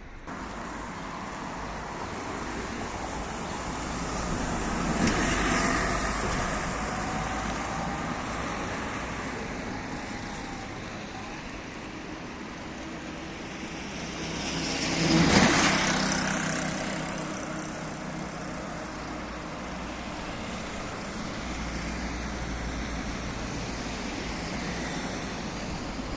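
Vehicles passing close by twice, each swelling and fading over a steady rumble, the second pass louder.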